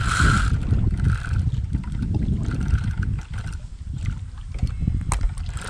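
Water sloshing and splashing as a large hooked carp is drawn in and thrashes at the water's edge, over a low rumble of wind on the microphone.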